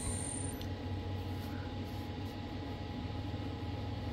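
Steady low machine hum with a couple of faint steady tones from the CNC router setup standing after the cut; a high hiss cuts off about half a second in.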